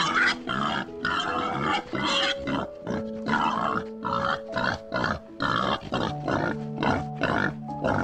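Pigs calling in short, repeated bursts, about two a second, over soft background music with long held notes.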